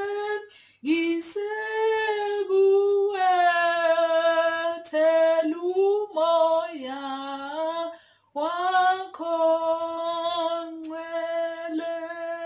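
A woman singing a hymn unaccompanied, in long sung phrases broken by two short breaths, about a second in and about eight seconds in, ending on a long held note.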